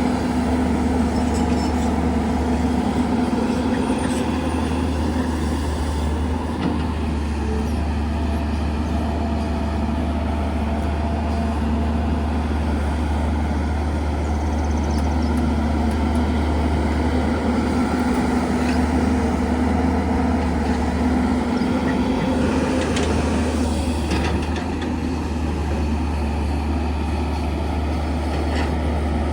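Heavy diesel earthmoving machinery running steadily, a deep engine drone with a constant hum over it.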